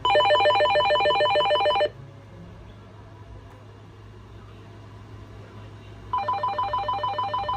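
Electronic ringer of a RadioShack 43-1704 two-line cordless phone warbling with an incoming call on line 2 while line 1 is on hold. A ring of about two seconds, a pause of about four seconds, then a second ring near the end.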